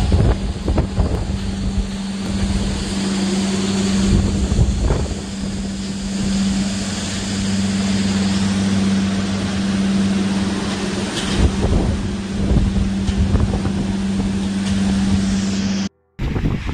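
Storm wind buffeting the microphone with heavy rumble and gusts, over a steady low hum; it cuts off abruptly near the end.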